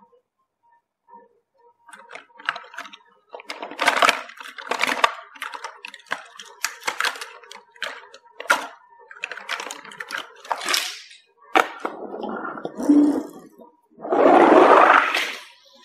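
Small plastic toy cars and trucks clattering and rattling against each other and a plastic basket as a hand rummages through them, in a run of sharp knocks. Near the end comes a longer, louder rushing noise as a toy race car is pushed across a cardboard board.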